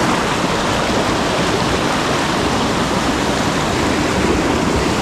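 Fast water of a small creek running high after heavy rain, a loud, steady rush.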